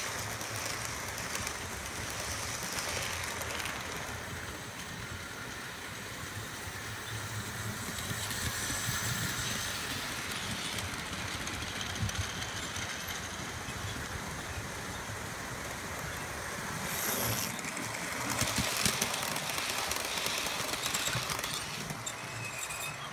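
Model railway trains running past on the layout: a steady rumble of wheels on the rails with a low motor hum. A brief louder burst of noise about seventeen seconds in.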